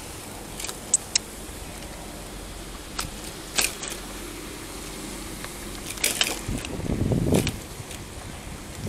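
Bicycle rattling and clicking as it rides over bumps, with sharp knocks about a second in and again midway. A louder burst of rattling and low rumble comes about seven seconds in as it drops off the kerb onto the road.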